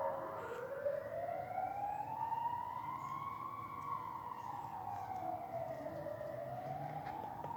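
Police car siren on a slow wail: the pitch rises over about three seconds, falls, then climbs again near the end, over a low rumble.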